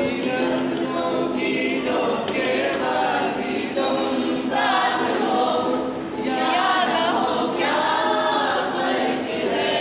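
A group of voices singing a song together, with a ukulele being played.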